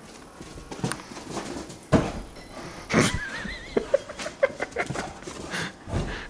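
A boxer dog's paws thumping and scrambling as it runs across carpet and jumps onto furniture, with loud thumps about two and three seconds in and again near the end. A short high wavering whine comes after the second thump.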